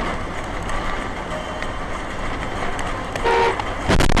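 Steady traffic and road noise, with a short vehicle horn toot about three seconds in, then a sudden loud noise just before the end.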